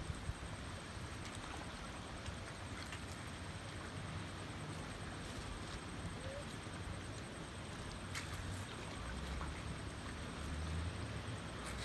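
Outdoor ambience at a lakeshore: a steady wash of wind and water noise with scattered light clicks. Wind rumbles on the microphone, growing stronger near the end.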